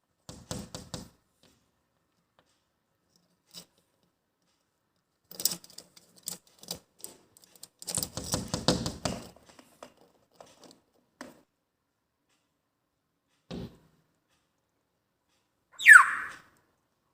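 Scattered bursts of tapping, scratching and clattering, with a single thud later on. Near the end comes one loud, shrill squawk from a parrot that falls quickly in pitch.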